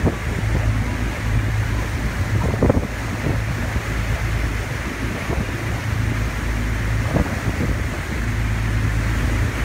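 Wind buffeting the microphone over the steady low hum of a boat's engine and the wash of the sea, with a couple of short louder puffs about three and seven seconds in.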